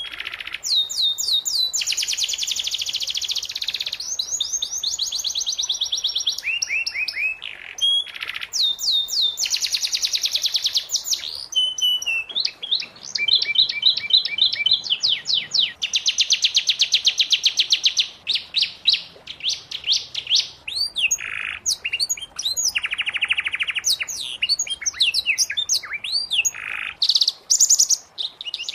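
Domestic canary singing a long, continuous song of fast trills and rolls, rapid runs of repeated high notes that change from phrase to phrase, broken only by brief pauses.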